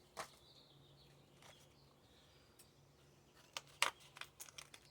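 Quiet handling of trading cards and foil card-pack wrappers: a few soft crinkles and clicks, mostly in the last second and a half.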